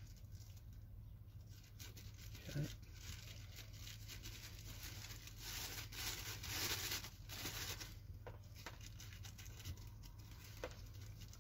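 Faint rustling and crinkling of a thin plastic overshoe being handled and cut with small scissors, with a couple of soft clicks.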